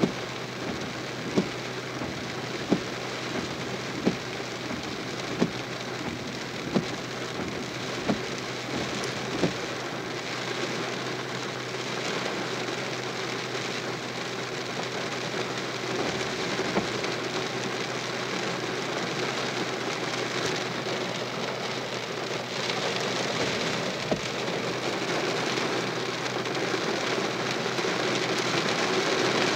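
Rain falling on a vehicle's roof and windshield, heard from inside, growing louder in the last several seconds. For the first ten seconds a sharp click repeats about every second and a half.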